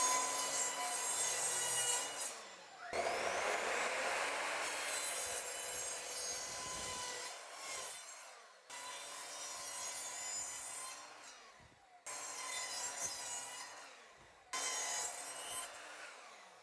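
A saw cutting through a 1x4 wooden board: several stretches of steady cutting noise, each breaking off sharply before the next begins.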